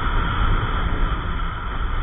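Wind buffeting the microphone and a steady drive drone of a Yamaha NMAX 155 scooter cruising along at a constant speed.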